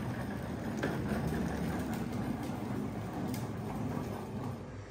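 Hard plastic wheels of a Little Tikes Cozy Coupe ride-on toy car rolling across a flake-coated garage floor: a steady low rumble with a few faint clicks.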